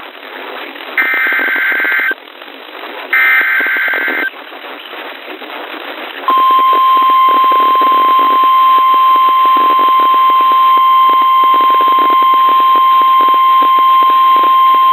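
NOAA Weather Radio alert signal: two short bursts of the SAME digital header data, then about six seconds in the steady single-pitch 1050 Hz warning alarm tone begins and holds, over radio static.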